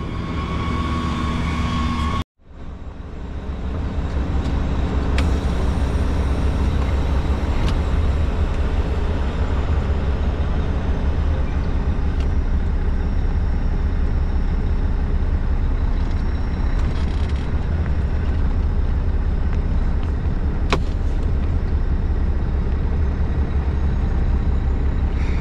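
Rain pelting a truck cab's roof and windshield over the steady low rumble of the idling truck. The sound cuts in after a brief break about two seconds in.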